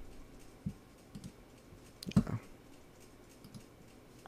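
A few light, scattered clicks of a computer mouse, with a quick cluster of clicks about two seconds in.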